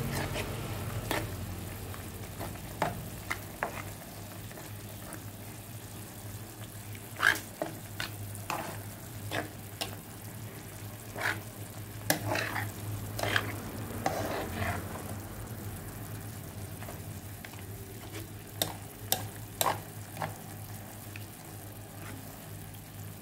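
Tomato and chilli sambal sizzling and simmering in a non-stick frying pan while a plastic spatula stirs it slowly, scraping and tapping against the pan at irregular moments. A steady low hum runs underneath.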